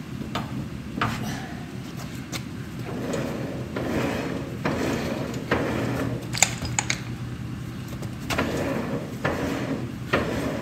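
Socket ratchet clicking and clinking on the spindle nut of a 1954 Clark forklift's drive wheel as the nut is run down tight on freshly greased wheel bearings. From about three seconds in there is a denser rubbing, scraping stretch as the wrench and wheel are worked by hand, with sharp metal clicks through it.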